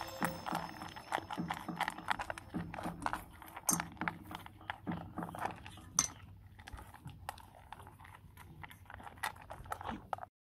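Beagle puppy eating dry kibble from a stainless steel bowl: irregular crunching, with kibble and teeth clinking against the metal bowl. It gets quieter over the last few seconds and cuts off suddenly near the end.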